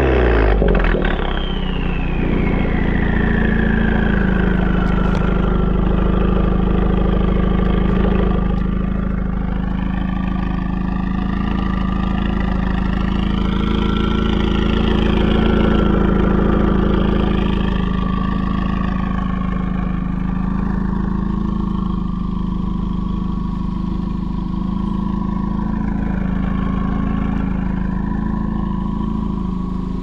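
Mk3 Ford Focus ST's turbocharged 2.0-litre four-cylinder idling through an AWE aftermarket exhaust, heard close at the twin tailpipes. The revs settle back to idle in the first second. A high whine falls in pitch over the first few seconds, then the idle runs steadily.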